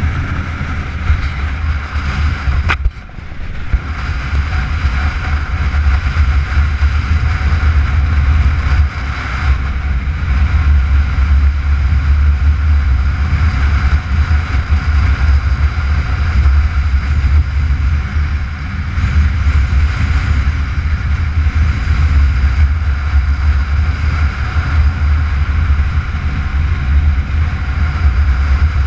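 Motorcycle engine running at road speed with wind rushing over the onboard camera, a steady low rumble. About three seconds in there is a click and a brief dip before the engine note picks up again.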